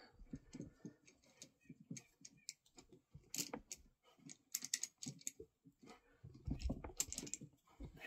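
Quiet, irregular clicks and clacks of a hand-operated ratcheting lug crimper being opened and a freshly crimped copper ring lug being worked out of its die, metal tapping on metal, with a few louder knocks about three and a half seconds in and again near the end.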